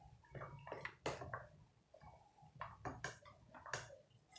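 Several faint, short knocks and scrapes of a bowl and a steel cooking pot as the bowl is emptied into the pot.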